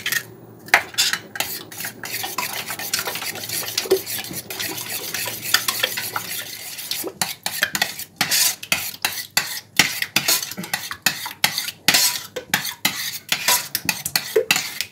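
Metal spoon beating an egg into thick matsun and sour cream in a stainless steel pot, scraping and clinking against the pot's sides in quick, repeated strokes.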